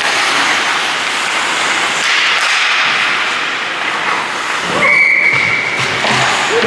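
Ice hockey game in an indoor rink: a steady hiss of skates scraping the ice and play along the boards. A short, shrill whistle blast comes about five seconds in, just after a brief shout.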